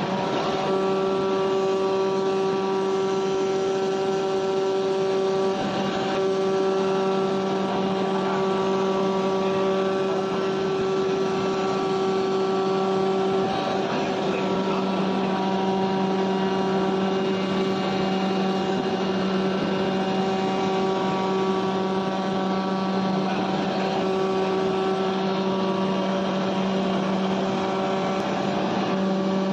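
Leather cutting machine running: a steady, even hum with several pitched tones, some of which drop out and come back every few seconds.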